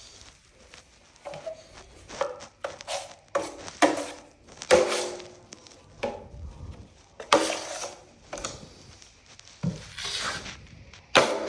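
Hand tools working on a drywall wall under repair: irregular sharp knocks mixed with short scraping strokes, the longest scrapes about seven and ten seconds in.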